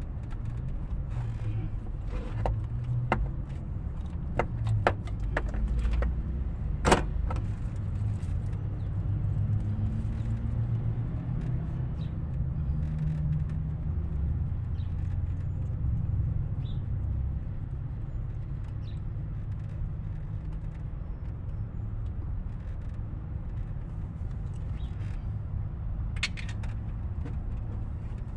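A small 12 mm wrench clicking and tapping on metal as a very tight bolt on an engine's coolant connecting pipe is worked loose. There is a run of sharp clicks in the first seven seconds, the loudest about seven seconds in, and a few more near the end, over a steady low rumble.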